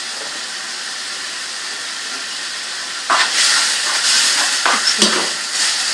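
Minced meat sizzling in oil in a non-stick frying pan as it is fried to cook off its moisture. About three seconds in the sizzle turns louder as a wooden spoon stirs the mince, with a few knocks of the spoon against the pan.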